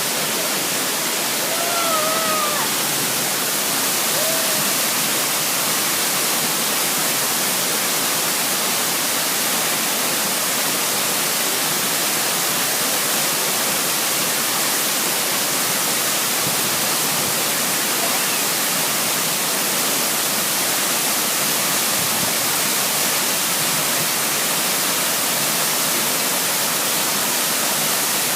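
Steady rush of a waterfall, with two brief faint calls about two and four seconds in.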